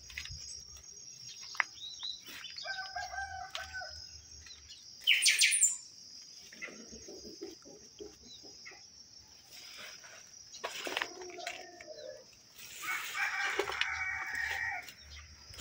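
Roosters crowing twice, a faint long crow about three seconds in and a louder one near the end, with a short, loud, high bird call about five seconds in, over a steady high insect drone.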